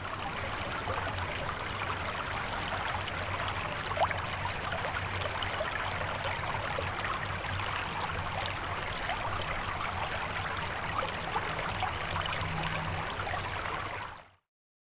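Steady rushing noise of running water, even throughout, which cuts off abruptly near the end.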